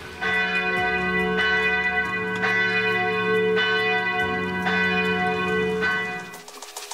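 Church bells ringing, with about six strikes roughly a second apart, each hum ringing on into the next, then fading out near the end.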